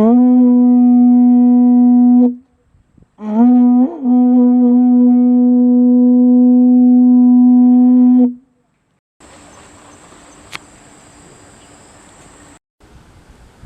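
A horn sounded in two long, steady blasts, a short one and then a longer one, each sliding up to pitch as it starts. A faint steady hiss follows.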